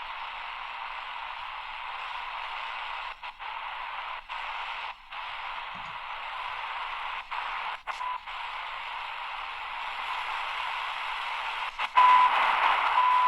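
Shortwave static hissing from the AGPTEK R09 portable radio's speaker as it is tuned slowly across the band; the DSP receiver mutes briefly at each tuning step, so the hiss cuts out for moments several times. Near the end a louder signal comes in, with short high beeps about once a second.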